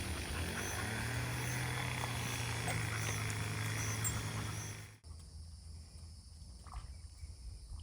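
An engine running steadily for about five seconds, then stopping suddenly, leaving faint quiet background.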